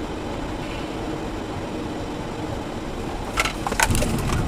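Steady engine and road rumble of a moving car heard from inside the cabin, picked up by a dashcam. About three and a half seconds in, a few sharp cracks or knocks break in and the sound gets louder.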